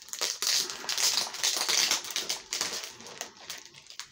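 Plastic packaging crinkling as a graded comic book slab is pulled out of it. The crinkling is loudest in the first two seconds, then trails off into lighter handling rustles and small clicks.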